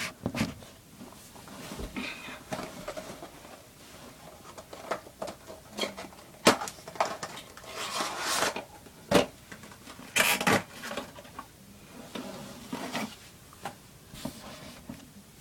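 Cardboard box and plastic packaging being handled, with irregular rustles, scrapes and sharp clicks as the model plane is taken out.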